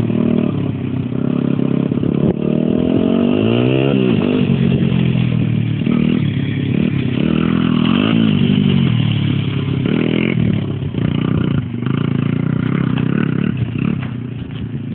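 Small dirt bike engine being ridden and revved, its pitch rising and falling again and again, with a sharp rev up and back down about four seconds in. It grows fainter near the end.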